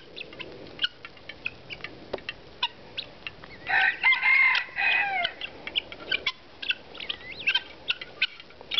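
Chickens and helmeted guineafowl pecking sour cream off a plastic lid: quick, irregular beak taps. Loud fowl calls lasting about a second and a half come around the middle.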